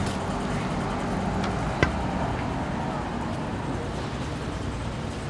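City street ambience: a steady hum of road traffic from passing cars, with one sharp knock about two seconds in.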